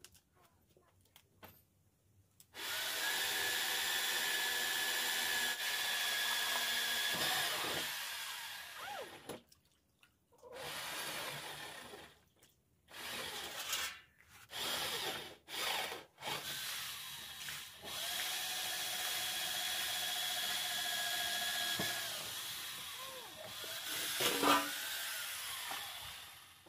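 A small motor, like a power tool, running in bursts with a steady whine: a long run of several seconds starting a couple of seconds in, a string of short runs, another long run, and a few short ones near the end.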